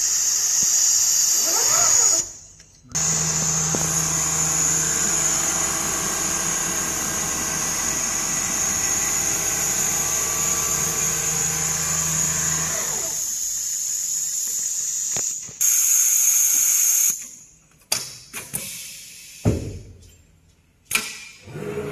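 Richpeace large-format computerized sewing machine running: a steady high whine over a low hum from the sewing head and gantry. The sound breaks off abruptly about two and a half seconds in and again several times near the end.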